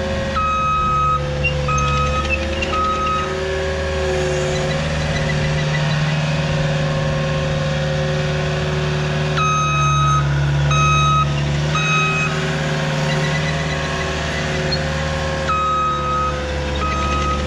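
Diesel engine of a heavy earthmoving machine running steadily, its back-up alarm beeping as the machine reverses. The beeping comes in three spells: near the start, about ten seconds in, and near the end.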